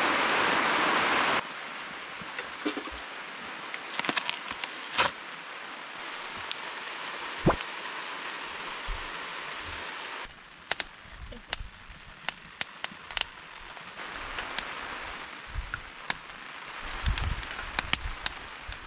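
A small wood fire under a metal griddle crackling, with a steady sizzling hiss and scattered sharp pops and clicks, among them metal tongs tapping the griddle as food is turned near the end. The hiss is loud for the first second and a half, then drops suddenly to a quieter level, and drops again about ten seconds in.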